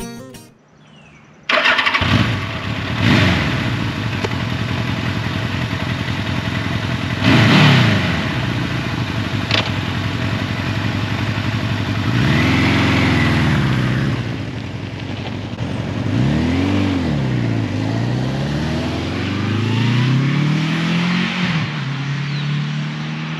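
1981 Suzuki GS1100E's air-cooled inline-four engine catching suddenly and running, with two sharp revs. The bike is then ridden off, the engine note rising and falling again and again as it pulls away and keeps running.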